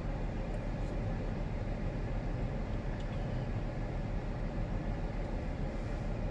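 Steady low rumble and hum inside a parked car's cabin, with a faint steady tone above it.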